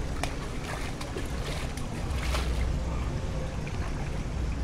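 Shallow pool water lapping and splashing gently around a child's and an adult's legs, with a steady low rumble underneath.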